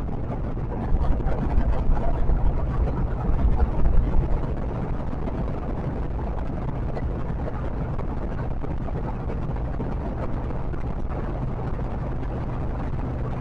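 Steady road and wind noise with a low engine hum from a vehicle cruising on a highway. The rumble grows louder and gustier for a few seconds, about one to four and a half seconds in, then settles back to a steady level.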